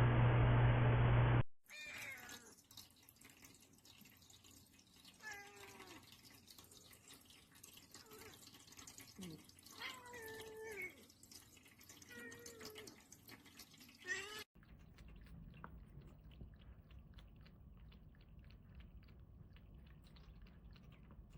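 A cat meowing about nine times in short, separate calls that bend in pitch. After an abrupt cut near the end there is faint dripping and trickling water, as from a pet water fountain.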